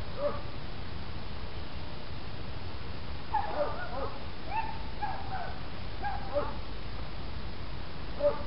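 A dog whimpering and yipping in short calls that bend in pitch, in several brief bouts, over a steady low background noise.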